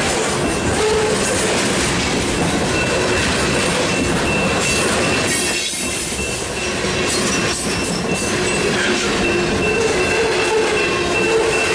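Freight cars of a BNSF mixed freight train rolling past at close range: a steady rumble and clatter of steel wheels on the rails, with wheel squeal coming and going. The grade crossing's Graham-White electronic bell keeps ringing over it.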